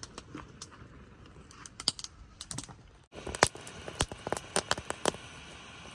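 Steel ladle stirring milk tea in a steel pot and clinking against its side: a few light clicks at first, then, after a brief break about three seconds in, a quicker run of sharp clinks, several a second.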